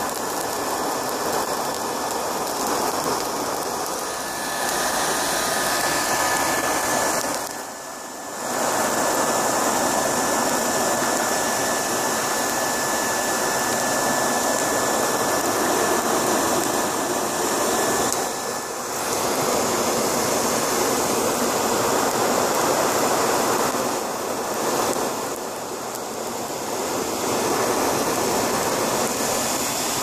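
Forge fire burning hard, a steady rush of air-fed flame noise with a faint steady whine in it. The rush dips briefly about 8 seconds in, again around 18 seconds, and once more a little later.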